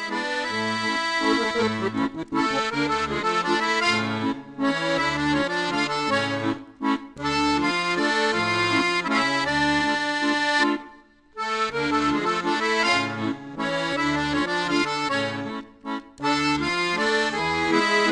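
Instrumental background music with a regular bass line, breaking off briefly about eleven seconds in.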